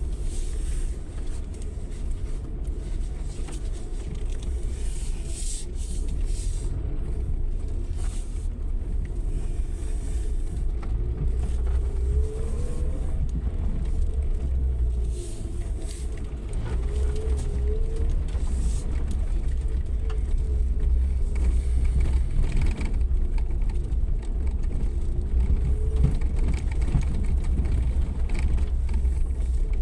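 Suzuki Jimny 4x4 driving off-road: a steady low rumble of engine and drivetrain, with the engine note rising and falling several times as the throttle changes.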